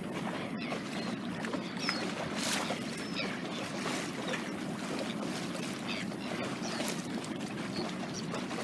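Steady rushing wash of water along the hull of a small sailboat under sail.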